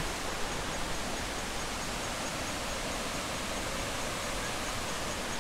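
Steady rush of a river and waterfall: water pouring over rock cascades below High Falls, an even, unbroken hiss.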